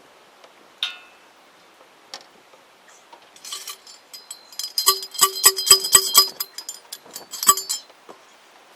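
Metal being struck over and over: a single clank, then a fast run of ringing metallic strikes, up to about five a second, that stops shortly before the end.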